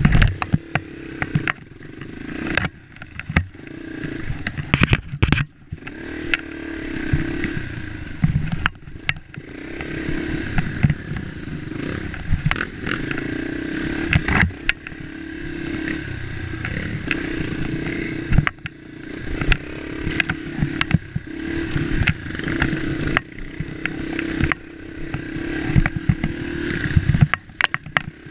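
Dirt bike engine heard from on board, the throttle opening and closing in repeated swells as the bike picks its way along a rough trail. Frequent sharp knocks and clatter come from the bike jolting over bumps and roots.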